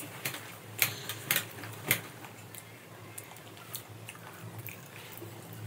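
Mouth sounds of someone eating with their fingers: a few sharp smacking clicks in the first two seconds, then fainter chewing ticks, over a steady low hum.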